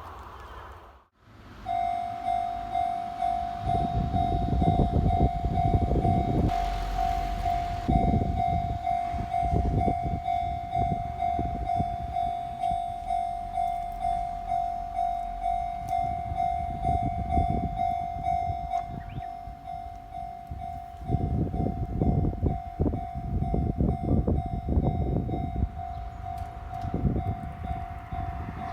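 Japanese level-crossing alarm ringing in a steady, repeating electronic ding, starting about two seconds in. Meanwhile a train passes over the crossing in several loud stretches of rumbling and wheel clatter, the longest near the end.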